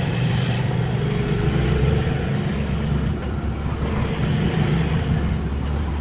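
Car running along a road, heard from inside the cabin: a steady low engine hum under even tyre and road noise.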